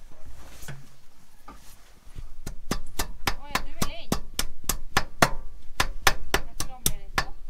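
Hammer striking steel, tapping a locking ring onto a tractor's three-point lift shaft. After a few light knocks, a quick, even run of about twenty blows sets in, roughly four a second, each with a short metallic ring.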